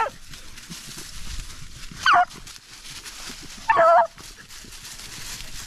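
Beagle baying on a rabbit's trail, giving two short yelping cries, the first about two seconds in and falling in pitch, the second longer about four seconds in, over a faint rustle of dry leaves.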